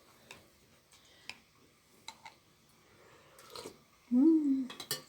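Spoons and dishes at a meal: a few faint, sharp clinks, then a brief, loud voiced sound about four seconds in.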